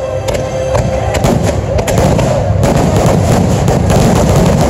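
Fireworks barrage: many sharp bangs of bursting shells with dense crackle, coming faster and louder from about a second in.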